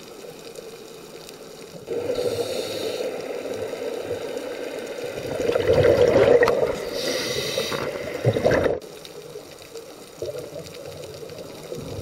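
Scuba diver's regulator breathing heard underwater: hissing inhalations and a loud rush of exhaled bubbles, starting about two seconds in, loudest in the middle and cutting off suddenly near nine seconds, over a faint steady underwater hiss.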